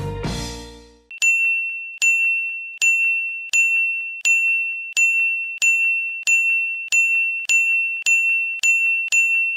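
A short musical jingle fades out in the first second. Then a single high ding, like a notification chime, is struck about a dozen times, coming faster and faster.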